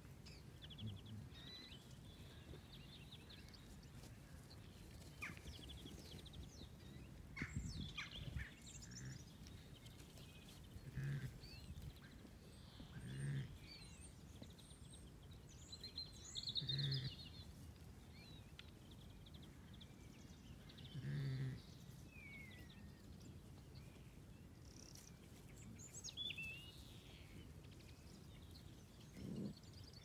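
Songbirds singing and chirping, with several short, low calls from the grazing Zwartbles sheep spaced through the middle. A burst of close crackles comes about a quarter of the way in.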